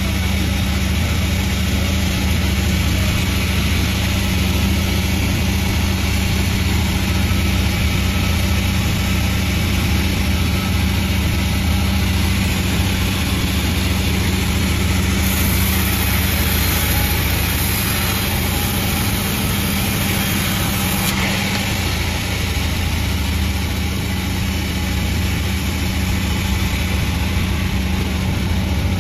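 Panda36 sawmill running steadily with a deep, even hum. For several seconds around the middle a brighter hiss rises on top of it, then drops away.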